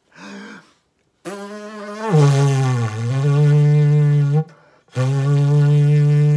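Lips buzzed into a long cardboard tube like a brass mouthpiece, sounding a low brass-like note from the tube's long air column. The first note starts higher, sags down and comes back up, then stops; after a short breath a second long note is held steady.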